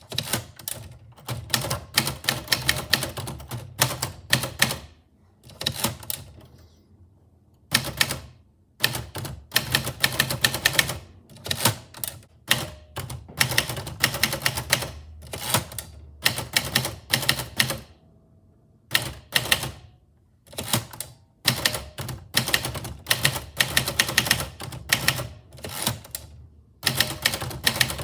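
Typewriter being typed on: fast runs of sharp key strikes broken by short pauses of a second or two.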